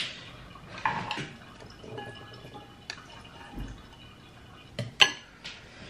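Cooked instant noodles slid from a saucepan into a ceramic bowl with metal chopsticks: wet dripping and splashing as they drop in, with a few sharp clinks against the bowl, the loudest about five seconds in.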